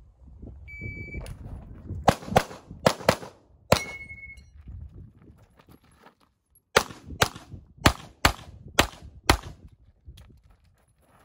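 A shot timer's start beep about a second in, then Sig Sauer P320 X-Five pistol shots fired in quick pairs: five shots, a pause of nearly three seconds, then six more.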